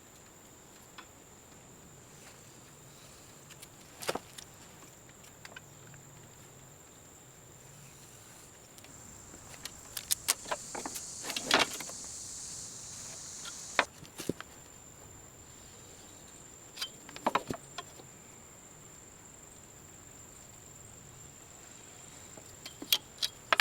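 Scattered clicks and light knocks with a short scratchy rustle near the middle, from a steel bar being measured and marked out for cutting, over a steady high whine.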